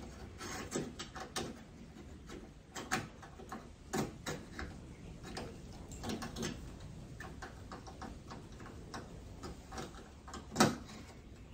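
Scattered light clicks and taps of a radiator cap being twisted off and a new one fitted onto the filler neck, with a sharper click near the end.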